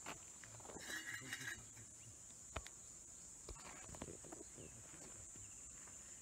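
Faint, steady high-pitched drone of insects, with a brief chirping call about a second in.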